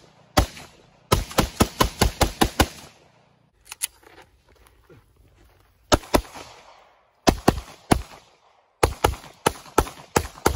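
Gunshots: a semi-automatic rifle fires a fast string of about eight shots in under two seconds, then a handgun fires single and paired shots at an unhurried pace.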